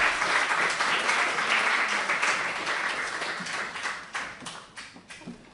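Audience applauding, the clapping dying away over the last couple of seconds to a few scattered claps.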